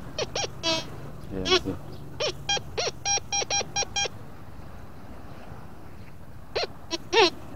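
Metal detector sounding its target tones as the search coil is swept over the sand. A quick run of short electronic beeps, some on one steady pitch and some sliding up and back down, then a pause of about two seconds and a few more beeps near the end.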